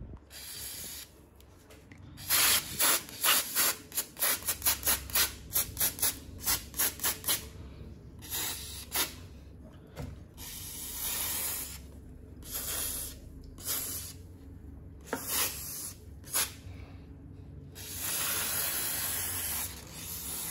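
Aerosol can of penetrating lubricant (rust and moisture remover) sprayed in hissing spurts: first a rapid run of quick short bursts, about four a second, then slower, longer sprays, the last held for about two seconds near the end.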